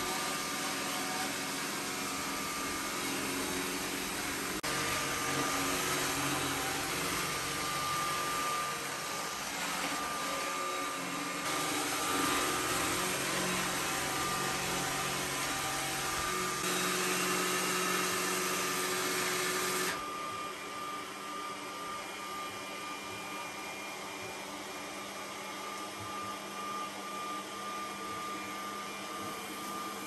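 iRobot Roomba s9+ robot vacuum running: a steady suction hum with a thin high whine. It steps louder and softer a few times and drops quieter about two-thirds of the way through.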